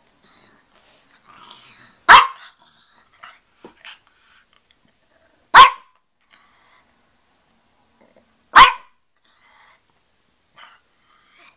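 Pekingese barking: three short, loud single barks, about three seconds apart.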